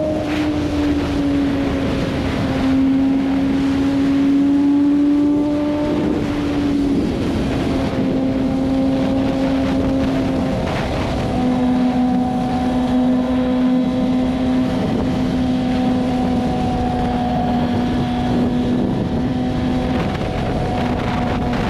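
BMW S1000RR's inline-four engine running at a steady cruise, with a held note that dips slightly a few times. Wind rushes over the microphone.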